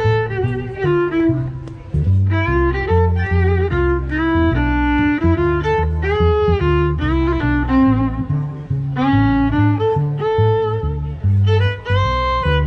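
Acoustic violin playing a bowed swing melody over an upright double bass plucking a stepping bass line.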